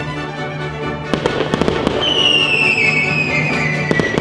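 Fireworks going off: a cluster of sharp bangs and crackling a little over a second in, then a long whistle falling in pitch for about two seconds, and two more sharp reports near the end as a shell bursts. Music plays steadily underneath.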